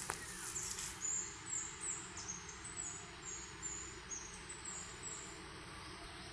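A small bird calling: a run of thin, high notes, about three a second, for some four seconds. Behind it is a brief rustle near the start.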